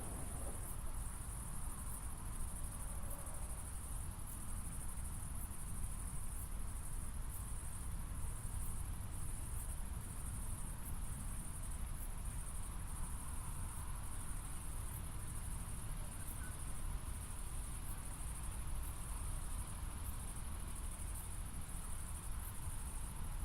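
Crickets singing: a steady high-pitched trill with short regular pulses about once a second, over a low steady rumble.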